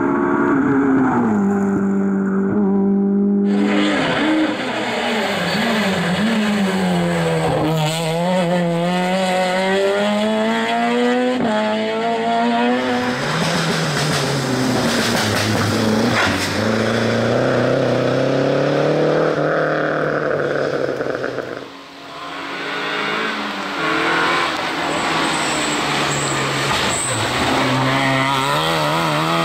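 Rally cars passing one after another on a wet tarmac stage: a Renault Clio, a Renault 5 and an Opel Astra. Each engine is revved hard, its pitch climbing and dropping through gear changes and lifts, over the hiss of tyres on the wet road. The sound changes abruptly three times as one car gives way to the next.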